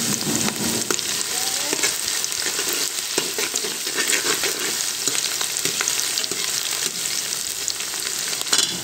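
Sliced onions with nigella and fenugreek seeds frying in hot oil: a steady sizzle full of small crackles and pops, the onions stirred now and then.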